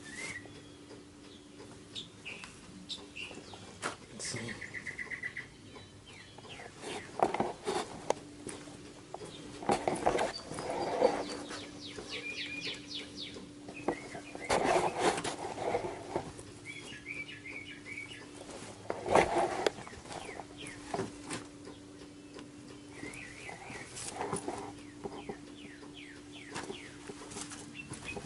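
Birds chirping and trilling, over a steady low hum that drops out now and then. Several louder noisy bursts come about a quarter of the way in, near the middle and about two-thirds of the way through.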